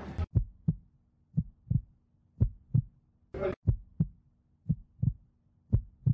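Heartbeat sound effect: a slow lub-dub of paired low thumps, about one beat a second, with one sharper, brighter thump about halfway through.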